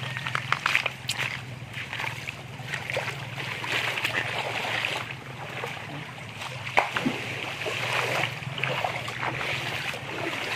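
Water of a small river flowing steadily, with scattered clicks and knocks from close by.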